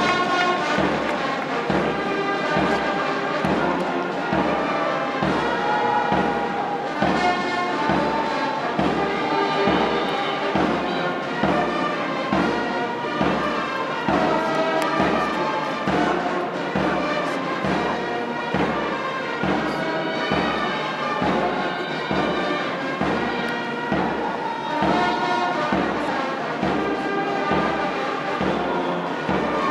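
Brass band playing a march: a brass melody over a steady, even bass drum beat.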